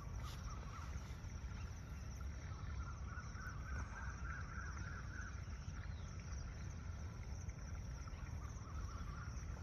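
Outdoor background noise: a steady low rumble, with a faint warbling animal call about four to five seconds in.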